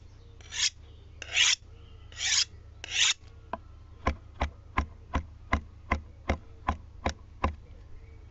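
Four short rasping scrapes, followed from about four seconds in by about ten evenly spaced clicks with a dull knock, close to three a second.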